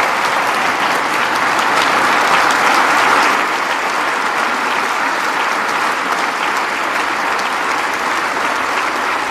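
A large audience applauding steadily, swelling slightly a couple of seconds in.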